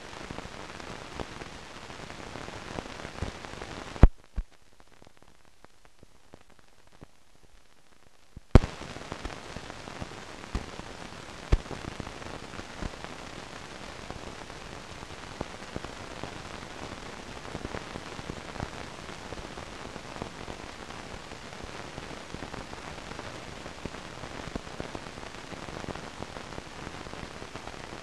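Hiss and crackle of an old film soundtrack, dotted with small clicks. About four seconds in, a loud pop cuts it to a faint hiss. About four and a half seconds later another loud pop brings the crackle back.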